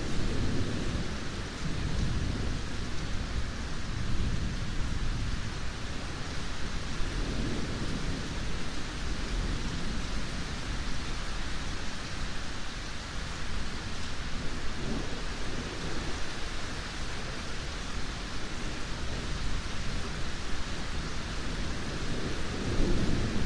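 Steady rain with low, rolling thunder rumbling underneath. The rumble fades in the first couple of seconds, swells briefly now and then, and builds again near the end.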